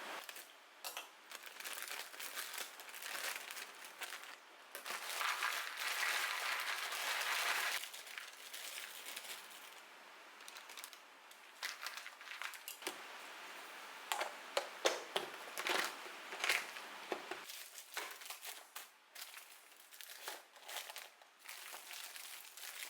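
Plastic packaging being handled, crinkling and rustling, followed by scattered light clicks and knocks.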